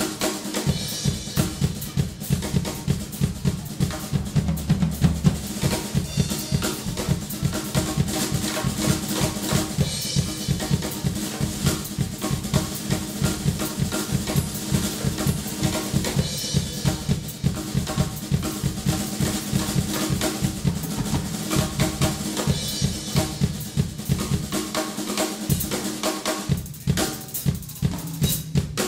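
Drum kit played with sticks: a steady run of bass drum and snare hits, with cymbal crashes every few seconds.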